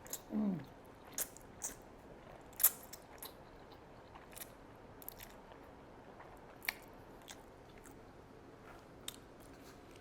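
Close-miked eating: biting and chewing with scattered crisp clicks and crunches, the sharpest a little under three seconds in. About half a second in, a short low vocal sound falls in pitch.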